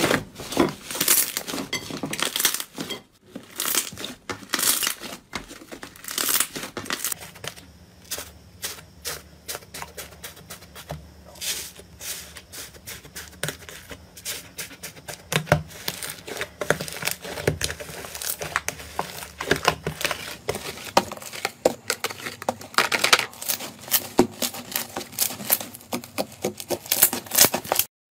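Slime being stretched, squeezed and pressed by hand, giving a dense, irregular run of crackles and clicks.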